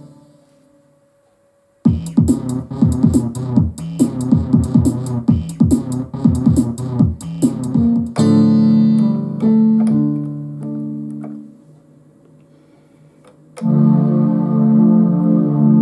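Roland JD-Xi synthesizer being played: after a short pause, a quick run of plucked notes with sharp attacks, then held chords that die away. After a lull of a couple of seconds, a new sustained chord sound starts near the end.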